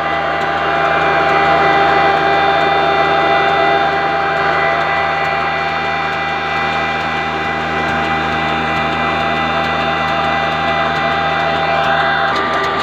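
Kala single-cylinder diesel oil engine running at a steady speed, a continuous mechanical hum with a fixed pitch. The tone shifts slightly near the end.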